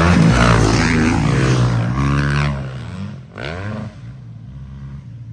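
Dirt bike engine revving hard as it rides past close by, loudest at first, its pitch dropping as it goes by and then fading. A shorter burst of revving follows about three and a half seconds in.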